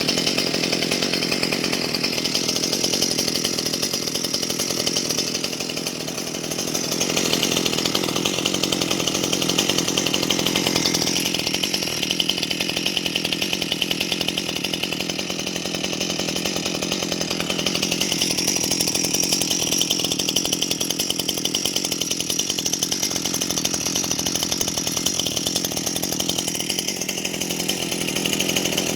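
Stihl MS 181 C-BE two-stroke chainsaw engine running steadily just after a cold start, dipping slightly about six seconds in before picking up again.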